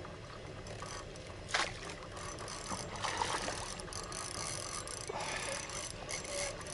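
Fishing reel clicking and whirring as a hooked carp is played on a rod bent into an arc, with the fish splashing at the surface near the landing net. A sharp thump about a second and a half in is the loudest moment.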